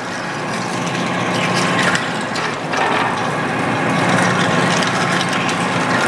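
Large metal lathe running while a big twist drill bores into a steel sawmill mandrel under flood coolant: a steady machine hum with the grinding noise of the cut, growing slightly louder.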